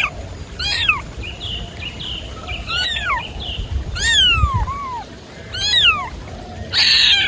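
A cat meowing over and over: about six high-pitched meows, each falling in pitch.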